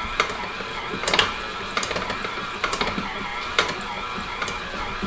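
KitchenAid Heavy Duty stand mixer running steadily, its flat beater turning a stiff dough in a stainless steel bowl, with a sharp knock about once a second.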